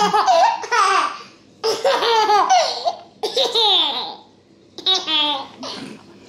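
A baby laughing in several bursts with short pauses between.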